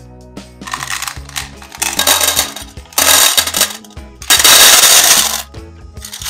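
Banana-shaped candies poured into a metal tin, rattling and clattering against the tin in four pours that grow louder, the longest and loudest near the end. Soft background music plays underneath.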